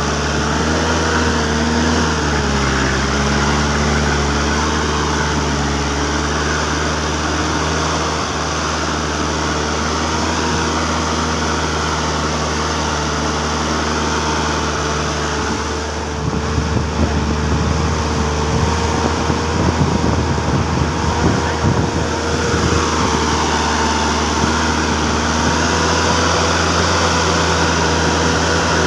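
Engine of a homemade farm truck running steadily. For several seconds in the middle it runs rougher and a little louder before settling back to its steady note.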